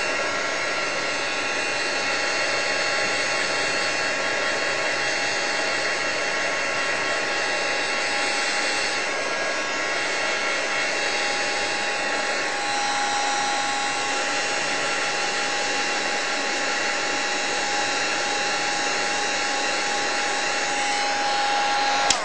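Embossing heat gun running steadily: a blower rush with a high motor whine, heating clear embossing powder on a stamped card. It cuts off suddenly near the end.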